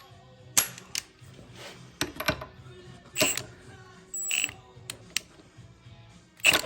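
Short bursts from a cordless impact wrench snugging the nut on a Shelix helical cutterhead, one with a brief high whine about four seconds in, among several sharp metallic clicks and knocks of the tool on the part.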